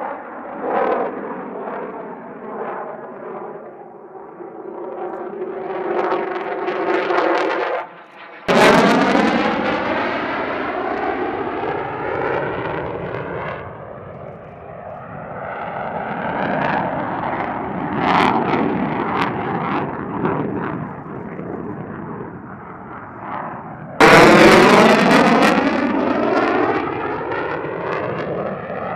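Fighter jet engine roaring as the plane flies past overhead, its rushing noise sweeping up and down in pitch. The sound jumps abruptly louder about a third of the way in and again near the end.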